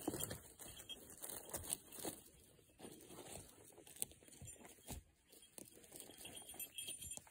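Faint, scattered rustles and small snaps of movement through dry conifer needles and twigs on the forest floor.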